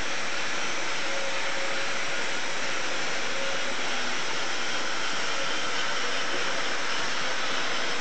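Steam hissing steadily from a BR Standard Class 9F 2-10-0 steam locomotive standing at a platform, escaping around its wheels and cab in a continuous rush with no chuffing.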